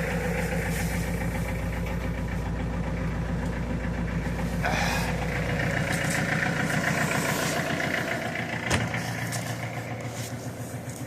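Diesel tractor engine idling just after a cold start on glow plugs, with a steady fast firing pulse. A rush of air joins about four and a half seconds in for a few seconds, a sharp click comes near nine seconds, and the engine's low hum fades toward the end.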